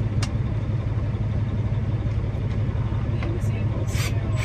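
Truck engine idling with a steady low hum, with a few light clicks of tools and parts handled under the dash, and a short rasping burst near the end.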